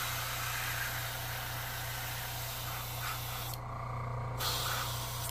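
Airbrush spraying paint: a steady hiss of air and atomised paint that stops for under a second about three and a half seconds in, then starts again. A steady low hum runs beneath it.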